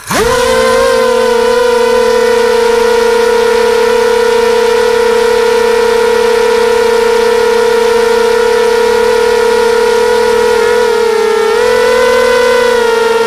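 QAV250 FPV racing quadcopter's brushless motors and propellers whining steadily in flight, heard from the onboard camera. The pitch holds steady, dips slightly and then rises a little near the end as the throttle changes.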